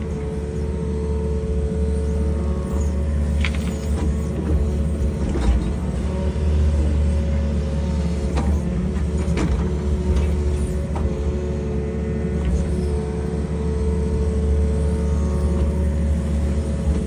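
Excavator diesel engine running steadily with a constant hydraulic whine, with a few scattered knocks and scrapes as the machine works.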